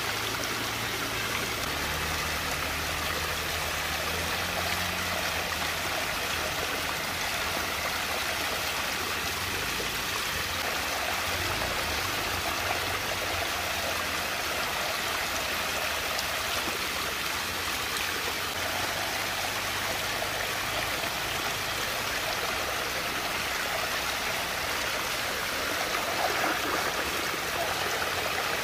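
Water rushing and swirling steadily in a whirlpool vortex as it drains down the funnel.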